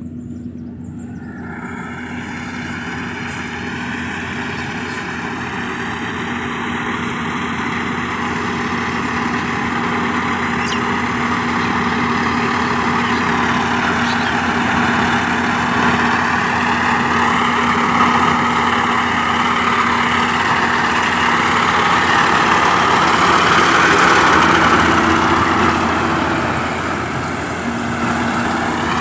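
Yanmar AG600A combine harvester's diesel engine running steadily while harvesting rice, with a constant hum under a broad whirring of the cutting and threshing machinery. It grows gradually louder over the first twenty-odd seconds, then eases slightly near the end.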